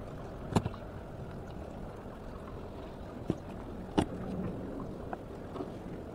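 Steady wash of wind and sea, with a few sharp clicks and knocks from a fish and pliers being handled on the wooden deck: about half a second in, near three seconds, and a louder one about four seconds in.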